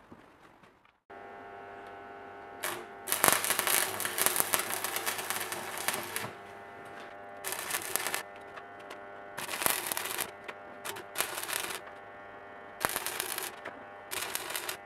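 Stick (arc) welding on a steel C-clamp frame: the arc crackles and spits in repeated bursts of a second or a few seconds, starting about a second in, over a steady electrical hum.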